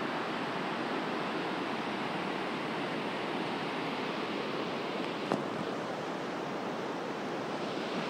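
Steady rushing of a fast mountain river's whitewater rapids in the gorge below. One short click about five seconds in.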